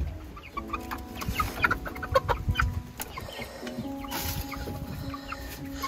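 Domestic chickens clucking as they are herded into the coop, a quick run of short calls that is busiest in the first half and thins out after about three seconds.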